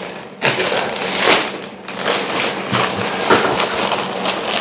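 A CPAP mask and its headgear strap being handled: irregular rustling, crinkling and sharp little clicks.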